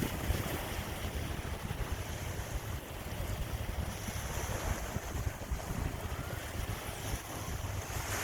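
Sea waves washing on the shore in steady wind, with the wind buffeting the microphone in a low, fluttering rumble.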